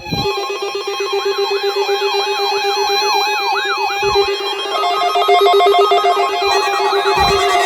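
Several NOAA weather alert radios sounding their alarms together, set off by the SAME-coded required weekly test: overlapping fast-warbling sirens, a steady electronic tone and stepped beeping, all starting at once. More alarms join partway through, and two dull thumps come near the middle and near the end.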